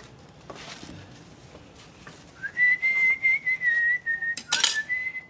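A man whistles a tune from about two seconds in, rising into notes that stay close together in pitch, over the clink of dishes being washed by hand in basins, with one louder clatter near the end.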